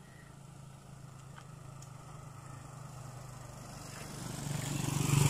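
Motorcycle-with-sidecar tricycle engine running as it approaches, getting steadily louder over the last couple of seconds and loudest near the end as it comes close.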